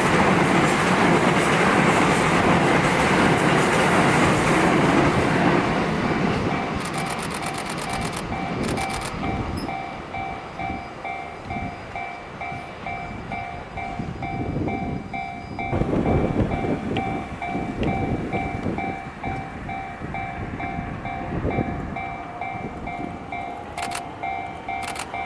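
A train passing a railway level crossing, its loud rolling noise easing off after about five seconds. From about six seconds the crossing's warning bell rings steadily, a repeating two-tone clang. From about sixteen seconds a train's wheels clatter in a regular rhythm under the bell.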